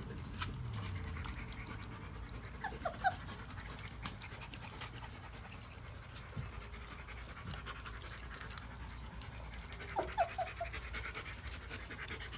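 German Shepherd puppies panting and scuffling on a concrete floor, with scattered small clicks. Two short runs of quick high squeaks come about three seconds in and again about ten seconds in.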